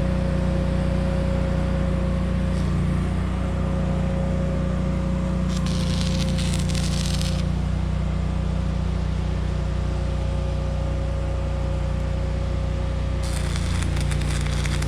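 Steady low hum of running equipment, broken twice by short bursts of sharp crackling and hissing from metalwork on a steel roof rack: once about six seconds in, and again near the end.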